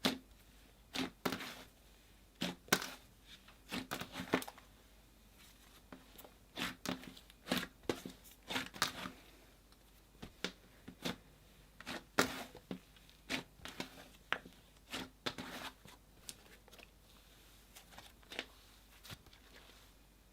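Slime being stretched and kneaded by hand, giving irregular clusters of short crackling, tearing sounds that thin out near the end.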